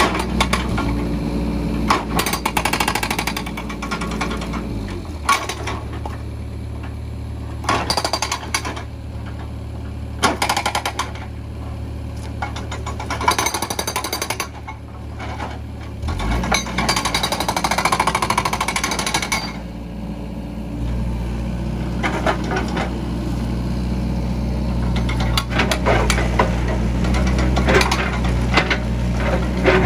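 Case 695ST backhoe loader's diesel engine running, its speed stepping up about five seconds in, dropping back around sixteen seconds and rising again after about twenty-one seconds, with repeated bursts of harsh rattling noise over it.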